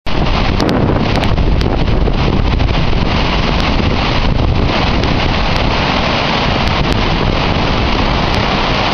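Water overflowing a large masonry dam and cascading down its spillway into the stone channel below: a loud, steady rush of white water. Wind buffets the microphone.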